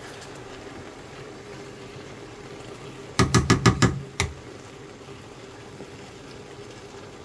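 Wooden spatula knocking against a frying pan, five quick raps about three seconds in and then one more, over a steady faint background hiss from the stir-fry cooking.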